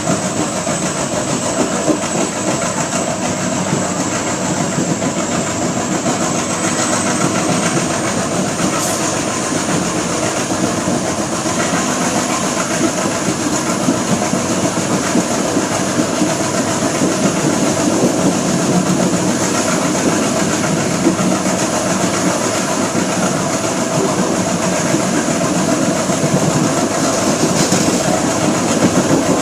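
Express passenger train running along the track: a steady rumble with the wheels clattering over the rails, unbroken throughout.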